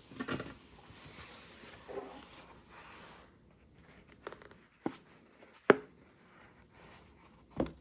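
Hands handling headphone packaging: a rustling for the first few seconds, then four sharp clicks and taps spread over the rest.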